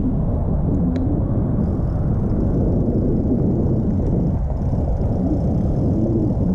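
Steady low rumble of a mountain bike rolling over a dirt trail, its tyres and frame jostling on the ground.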